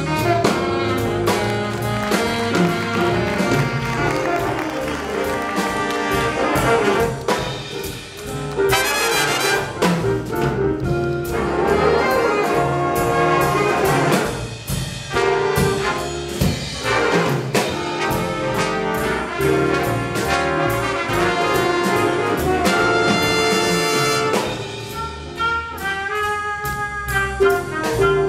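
Jazz big band playing, with the brass section of trumpets and trombones and the saxophones sounding together over a steady beat.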